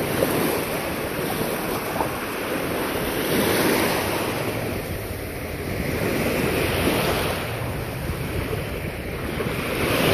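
Small waves washing over sand at the shoreline, the sound of the water swelling and easing every few seconds, with wind buffeting the microphone.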